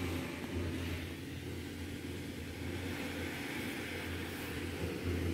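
A steady low drone with a faint hiss above it, unbroken throughout.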